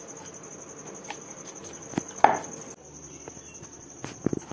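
Crickets trilling steadily in a high, evenly pulsed tone, with a few short knocks; the loudest knock comes about two seconds in.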